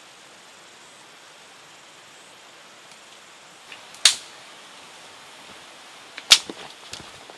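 Outdoor wood fire crackling, with two sharp snaps about two seconds apart, the second the loudest, then a few smaller pops. A steady hiss of background noise runs beneath.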